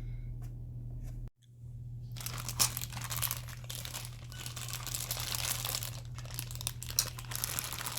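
Plastic crinkling and rustling as toy parts and packaging are handled, with a couple of sharper clicks. It starts after a brief dropout at the beginning.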